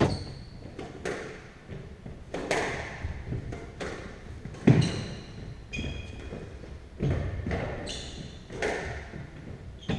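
A squash rally: the rubber ball smacking off racket strings and the court walls about every one to two seconds, each hit ringing in the enclosed court. The loudest hit comes just before five seconds in, and short high squeaks of court shoes on the wooden floor come between hits.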